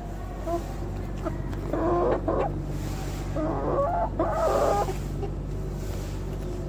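Chicken clucking: a short run of calls about two seconds in and another, longer run around four seconds in, over a steady low hum.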